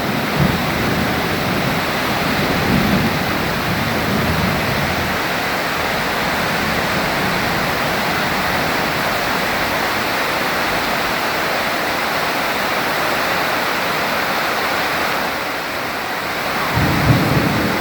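Heavy rain falling steadily through a thunderstorm, with low thunder rumbling in the first few seconds and a new rumble of thunder starting near the end.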